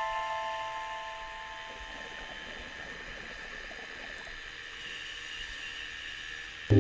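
Held notes of background music ring out and fade over the first second or two, leaving a faint steady hiss; a new ambient music track starts suddenly near the end.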